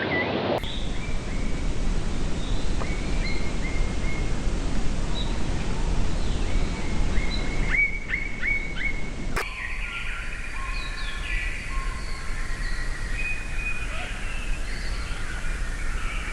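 Birds chirping and calling over steady outdoor background noise. The sound changes abruptly twice: first scattered short calls, then four quick falling chirps in a row, then many birds calling at once.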